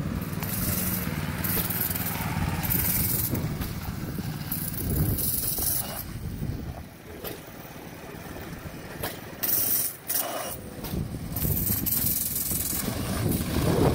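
Small engine of a homemade go-kart running as the kart drives off, loudest in the first few seconds and quieter after about six seconds, with gusts of wind on the microphone.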